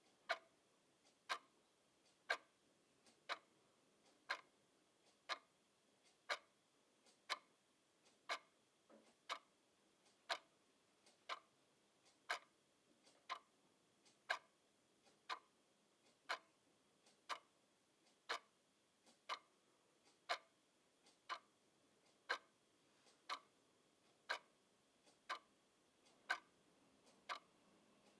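Clock ticking steadily, sharp ticks about once a second.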